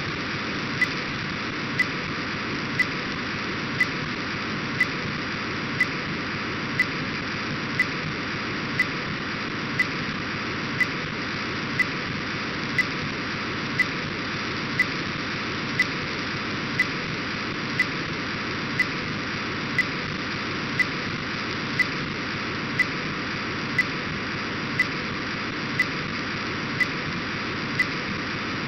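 Software-defined radio receiver audio of an Orbcomm satellite's data downlink on 137.7125 MHz: a steady rushing hiss, with a short sharp click about once a second.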